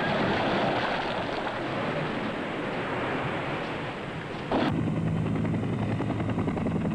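Rushing wind and sea noise over a ship's deck. Just past halfway it cuts abruptly to a helicopter's fast, steady rotor chop over a low engine hum.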